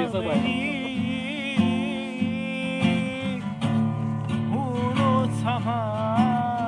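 A Turkish song sung with vibrato to a strummed acoustic guitar; the voice breaks off for about a second midway while the guitar keeps strumming, then comes back in.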